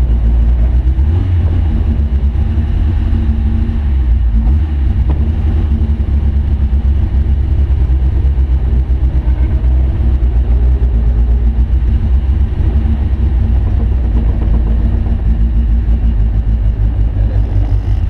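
Rally car engine running at low revs, heard from inside the cabin as the car creeps forward: a steady, deep rumble.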